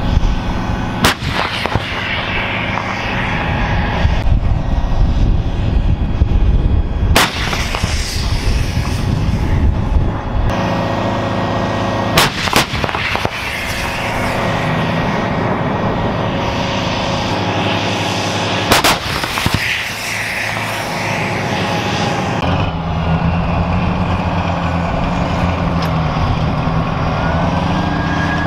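Self-propelled howitzers firing: about five sharp blasts, roughly six seconds apart, two of them close together about twelve seconds in. The vehicles' diesel engines run steadily between the shots.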